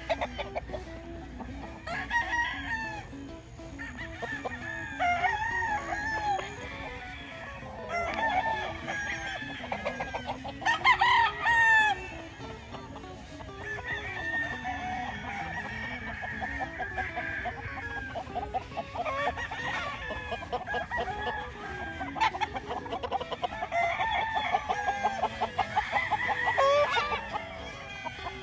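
Gamefowl roosters crowing and clucking, one call overlapping the next, with the loudest crow about eleven seconds in.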